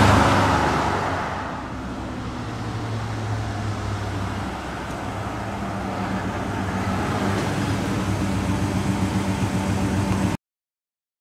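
1965 Pontiac GTO's 428 V8 fading away after a pass, then running steadily and slowly growing louder as the car approaches again. The sound cuts off suddenly near the end.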